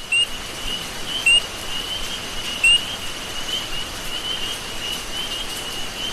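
Nature ambience: a bird gives three short, sharp calls, each about a second and a half apart, over a steady chorus of rapid high-pitched chirping.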